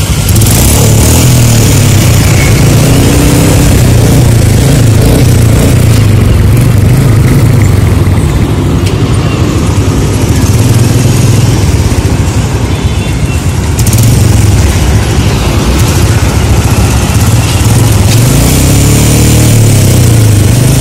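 Several motorcycle engines running close by, with revs rising a few times as bikes pull away; loud throughout.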